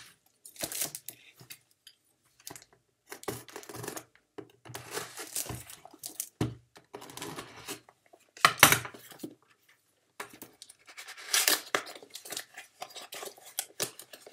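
A parcel's packaging being torn open by hand: irregular ripping and rustling in short bursts with brief pauses between, loudest a little past halfway. The packaging is hard to get open.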